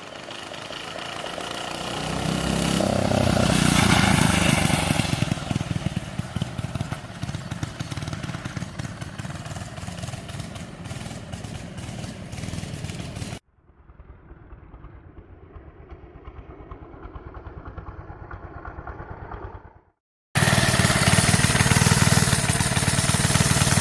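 A mini bike's single-cylinder Briggs & Stratton four-stroke engine running under way. It rises to its loudest about four seconds in, then eases off. About halfway through it drops to a faint, distant running, cuts out briefly, and comes back loud and close, chugging steadily.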